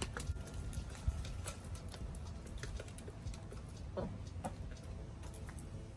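Hens pecking at a scattered mix of corn, seeds and dried insects on a treat table: irregular light tapping clicks of beaks striking the grain and the tray.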